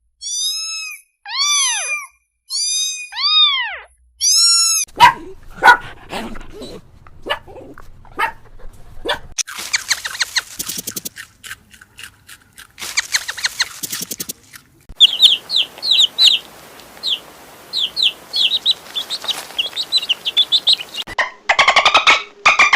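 A run of different animal calls, one clip after another: five rising-and-falling pitched calls, then a spell of sharp short sounds, then fast buzzy pulsing, then quick high chirps like bird calls.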